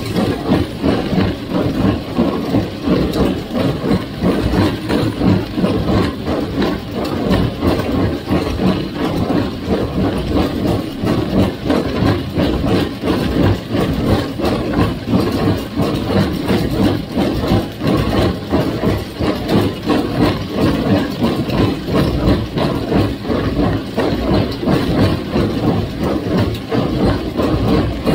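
1958 Farmall 350 tractor's gasoline engine running steadily, with no break.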